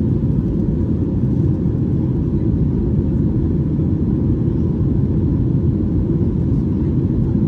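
Airliner cabin noise: a steady low rumble of engines and airflow, with a faint steady hum above it.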